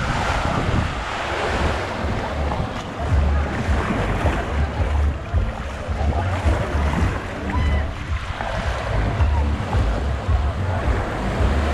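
Surf washing onto a beach, with wind buffeting the microphone in uneven low gusts and faint distant voices.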